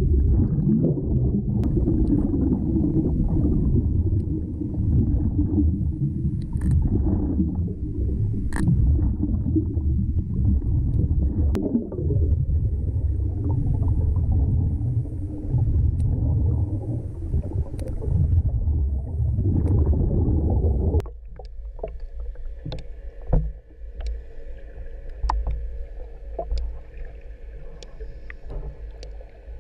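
Underwater sound picked up by a diver's camera: a loud, churning low rumble of moving water with a few sharp clicks. About two-thirds of the way through it cuts abruptly to a quieter passage with a steady hum and many scattered clicks.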